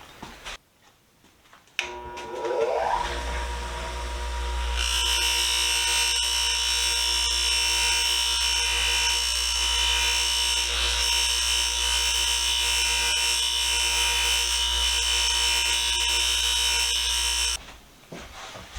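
Electric buffer with fiber wheels switched on, its pitch rising as it spins up, then running steadily with a loud high hiss as a brass ferrule is polished against the wheel. It cuts off about 17 seconds in.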